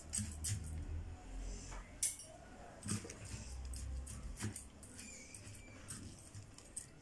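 A metal spoon stirring and scraping a raw rice-and-chopped-vegetable stuffing on a ceramic platter, with irregular light clicks of the spoon against the plate.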